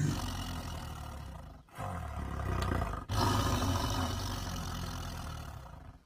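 Tiger growling low, in three stretches with two brief breaks, about a second and a half in and about three seconds in.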